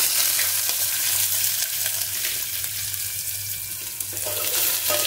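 Chopped onion and ginger dropped into hot mustard oil in a metal pot, sizzling with a sudden hiss that eases slightly. From about four seconds in, a metal spoon stirs and clicks against the pot.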